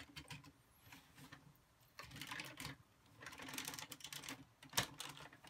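Plastic parts of a Power Rangers Tigerzord Megazord toy clicking and rattling as they are handled and fitted together, with denser clattering from about two seconds in and one sharp snap near the end.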